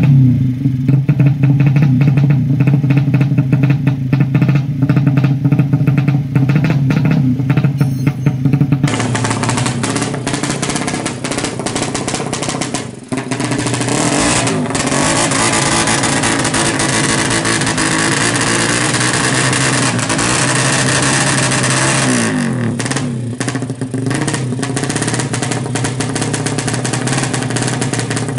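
Suzuki Satria FU drag bike's single-cylinder four-stroke engine, with its open drag exhaust, revved up and held steady on a paddock stand. About nine seconds in this gives way to the engine running loud and rough at the drag strip, with rising revs again near the end.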